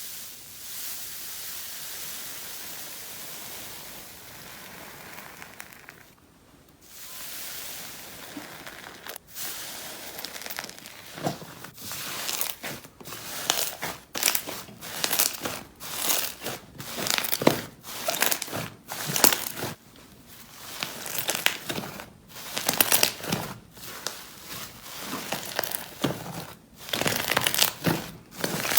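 Slime being pressed and squeezed by hand. A soft steady hiss comes first, then from about a third of the way in a quick run of crackling, crinkling squishes, one or two a second.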